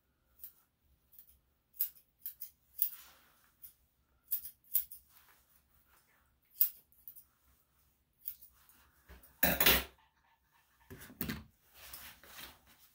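Grooming scissors snipping the fur on a small dog's leg and paw in short, irregular cuts. About nine and a half seconds in comes a louder half-second rustle, with softer handling noises near the end.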